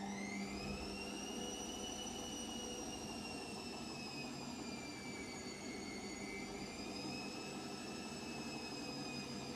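Washing machine going into its spin cycle: the motor's whine rises at the start, then holds high and steady over the rush of the turning drum, sagging slightly about five seconds in.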